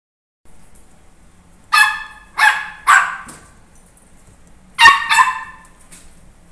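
A puppy giving short, high-pitched yaps: three in quick succession, then two more a couple of seconds later.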